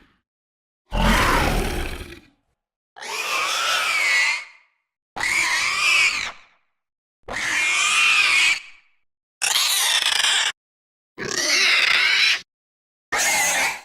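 Xenomorph creature sound effects from the Alien films: seven separate screeches and growls, each a second or so long with a wavering pitch, with short silences between. The first, about a second in, is deeper; the last is cut off at the end.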